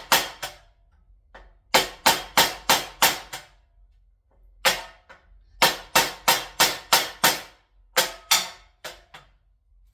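Edge of a 1095 steel mini hunter knife beaten repeatedly into a wooden axe handle in an edge-retention abuse test: sharp knocks in quick bursts of about six strikes, roughly three a second, with a few single strikes near the end.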